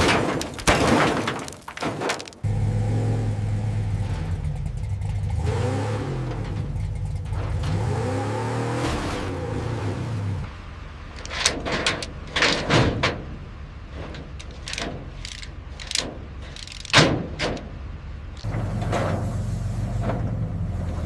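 A steady low mechanical hum, like a motor running, broken in the middle by a run of sharp knocks and clanks. It opens with a few loud impacts.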